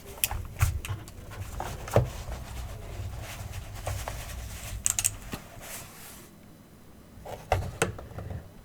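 An Aukey mechanical keyboard being handled: a few scattered, irregular clicks and knocks over low rustling handling noise. This is not a steady run of typing.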